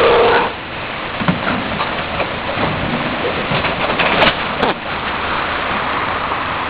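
Rear-loader garbage truck (Heil 5000 body) running close by: a steady rushing noise with no clear pitch, with a couple of sharp clicks about four seconds in.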